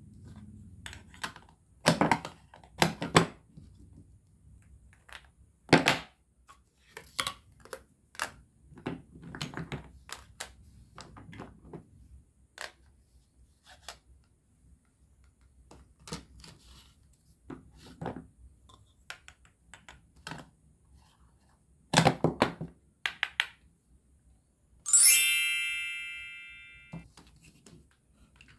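Wooden and plastic toy food pieces clicking and knocking as they are picked up, pulled apart and set down on plates and the tabletop. Near the end a loud, bright ding rings out and fades over about two seconds.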